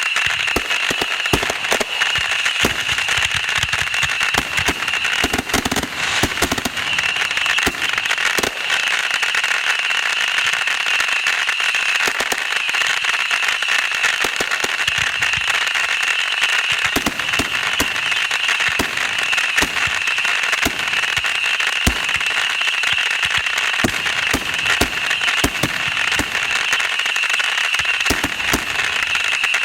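Fireworks crackling and popping: a dense run of many sharp cracks throughout, with some heavier bangs, over a steady high-pitched hiss.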